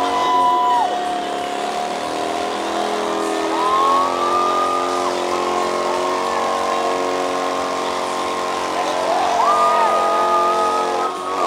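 Motorcycle engine held at high revs during a burnout, its rear tyre spinning on the pavement. The revs climb and hold twice, about three seconds in and near nine seconds, dropping back in between.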